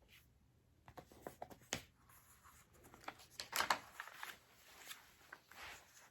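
Faint paper rustling and scattered clicks from a picture book being handled, its pages turned, with the loudest rustle about halfway through.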